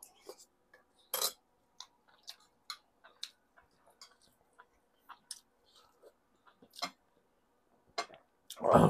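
A man chewing food close to a clip-on microphone: irregular wet mouth clicks and smacks, with a louder smack about a second in and a fuller, louder sound at the very end.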